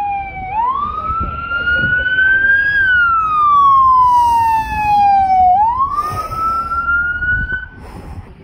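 Sheriff's patrol car siren wailing, rising and falling slowly in about two long sweeps, then cut off just before the end.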